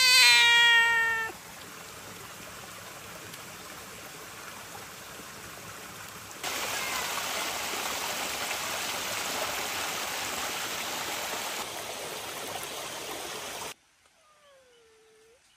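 A domestic cat meows once, a drawn-out meow. A steady rushing noise follows, louder from about six seconds in, and cuts off suddenly near the end.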